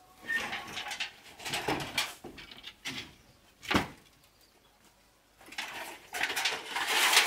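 Debris being handled: scraping and rustling, one sharp knock about midway, then a corrugated metal roof sheet being shifted, rattling and scraping louder toward the end.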